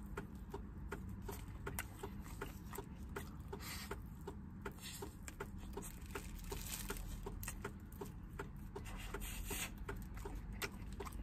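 Close-up chewing and lip smacking of a man eating roast chicken with his fingers: a steady run of small wet clicks, about three to four a second, over a low steady hum.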